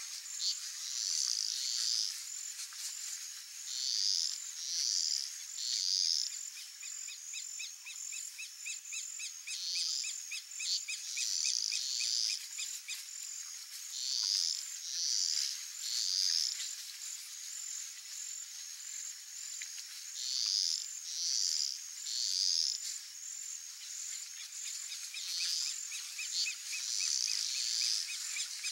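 Outdoor wildlife chorus: a steady high insect trill, with a call repeated three times in quick succession every five or six seconds. A softer, faster pulsing trill joins in for a few seconds twice.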